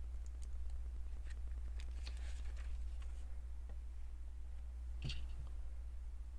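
Small plastic LEGO pieces being handled: faint scattered clicks and light scraping, with one sharper click about five seconds in, over a steady low hum.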